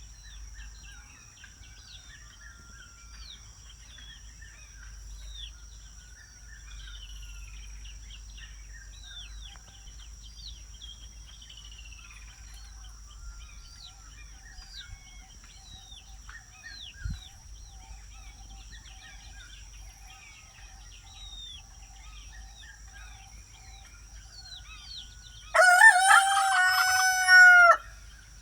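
Many small birds chirping over a steady high-pitched insect drone, then near the end a rooster crows once, loudly, for about two seconds.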